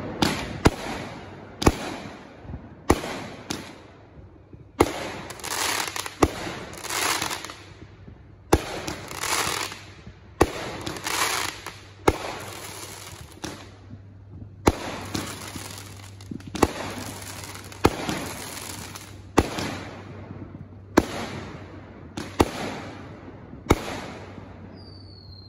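Aerial fireworks going off in a steady series, a sharp bang about every second to second and a half, with stretches of crackling and hiss from the bursting stars between many of the bangs.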